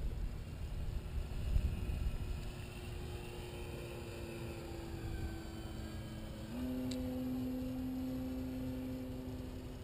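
Brushless electric motor and propeller of a Dynam Waco RC biplane flying overhead, a steady drone that shifts to a lower, louder tone about six and a half seconds in. Wind rumbles on the microphone in the first couple of seconds.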